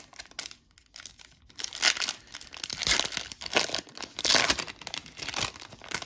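Foil wrapper of an O-Pee-Chee Platinum hockey card pack being torn open and crinkled by hand: a run of sharp crackling rustles, sparse at first and loudest in the middle as the pack is pulled apart.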